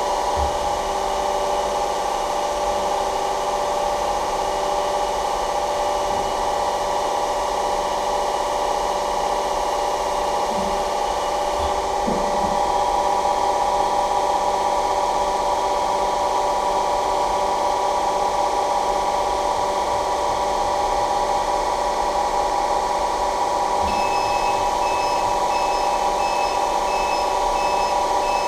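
KZh1844 rolling machine running with a steady mechanical hum made of several fixed tones, its pitch shifting and getting slightly louder about halfway through. Near the end a fast, evenly pulsing high electronic beep starts up.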